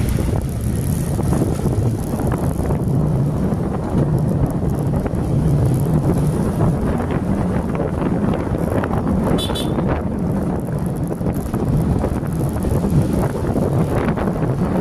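Wind buffeting the microphone over a steady low rumble of a moving two-wheeler riding on a wet road. A brief high-pitched ring or beep sounds about nine and a half seconds in.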